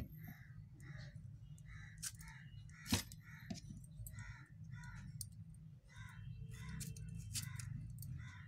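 Crows cawing repeatedly, about two caws a second in short runs, with a few sharp knife taps on a cutting board as tomatoes are cut; the loudest tap comes about three seconds in.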